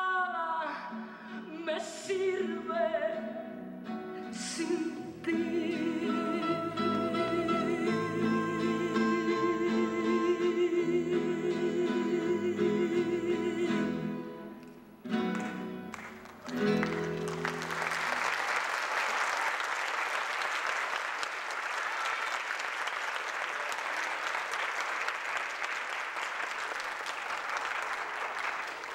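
A song with a singer holding long notes with vibrato over instrumental accompaniment, which ends about 17 seconds in; an audience then applauds steadily.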